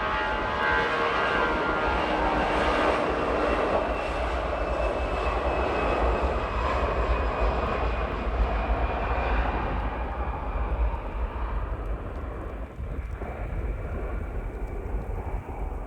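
Jet airliner engines running: a loud broad rush with a whine that fades after a few seconds, then the sound grows duller in the second half while a low rumble remains.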